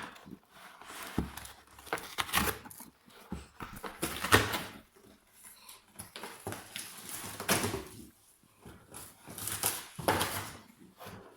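A French bulldog scratching and rustling at a cardboard box in irregular bursts.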